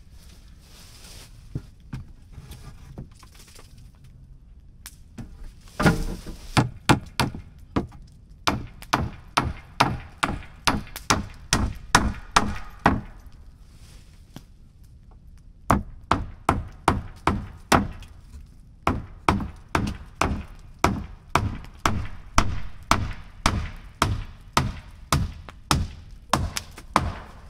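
Hammer driving nails into wood: rapid, even blows about three a second, in two long runs with a short pause between, after a few scattered knocks.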